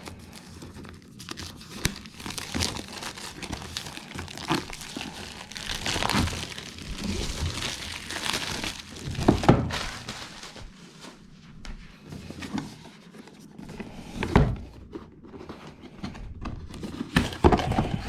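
Packaging being opened and handled: crinkling and tearing with scraping, and a few sharp thunks as the box and its contents are handled.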